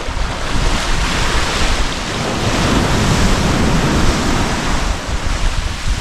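Sea surf: small waves breaking and foamy water washing up and back over the sand around the wader's feet, swelling a little a few seconds in.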